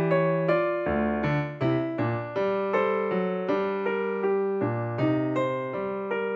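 Background piano music: single struck notes, each dying away, in an even run of about three a second.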